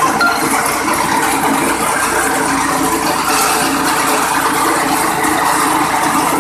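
Grass chopper driven by a small petrol engine through a V-belt, running steadily and loudly while grass is fed through its cutter.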